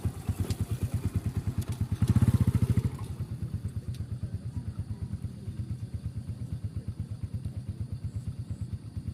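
A small engine running with a fast, even pulsing beat. It gets louder for about a second, roughly two seconds in, then settles back to a steady run.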